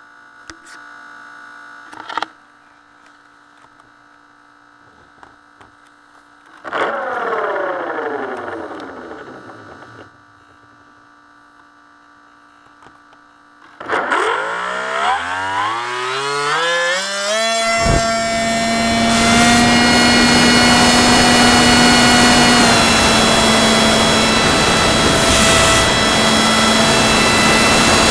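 FPV model aircraft's motor and propeller, heard onboard: a faint steady electronic hum, then a short throttle blip about seven seconds in whose pitch falls away as it winds down. From about fourteen seconds the motor spins up in a rising whine to a steady high drone, with a sharp click just before it levels off, and rushing air grows under it once the aircraft is flying.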